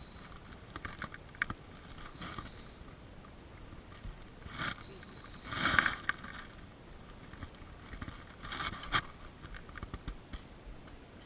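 Quiet handling noises aboard a small fishing boat: scattered small clicks and knocks over a faint steady background, with a short louder burst of noise about six seconds in.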